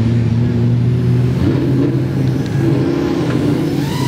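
Car engines running at a steady idle, with a brief rise and fall in pitch near the end.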